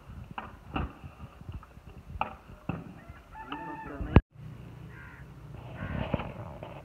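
A long metal ladle knocking and scraping in a large steel cooking pot as it stirs, with a rooster crowing once about three seconds in.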